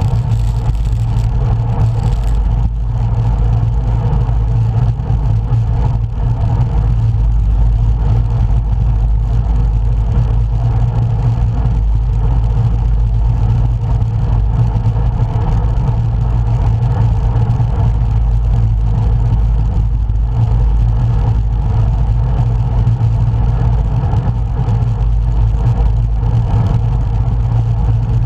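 Steady, loud wind rumble on the camera microphone from riding a road bike, with no breaks.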